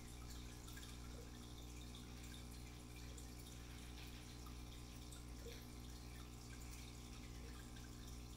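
Faint trickling and dripping of aquarium water, small scattered drips over a steady low hum: a small shrimp tank's filter running.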